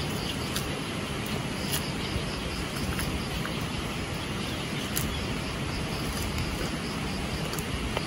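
Steady outdoor noise, mostly wind rumbling on the microphone, with a few faint clicks.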